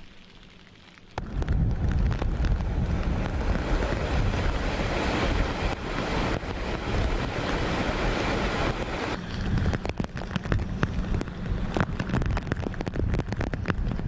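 Typhoon wind buffeting the microphone over heavy rain and rushing floodwater, setting in abruptly about a second in after a quieter start. Sharp crackling hits thicken in the second half.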